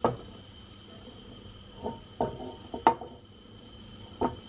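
Kitchenware being handled: a string of short, sharp knocks and clacks, the loudest at the very start and about three seconds in, over a faint steady high whine.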